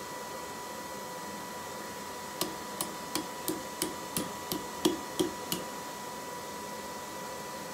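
Hand hammer striking red-hot steel tongs on an anvil during forging: about ten sharp blows at roughly three a second, each with a short ring, starting a couple of seconds in and stopping about halfway through.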